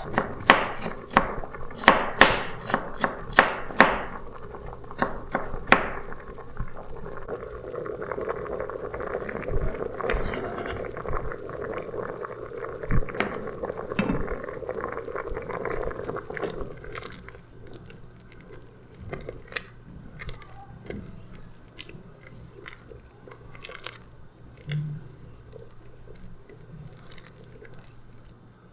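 Kitchen utensils at work during meal preparation: a quick series of sharp knocks and clatters for the first few seconds, then a longer stretch of steady scraping and rustling, then quieter scattered knocks.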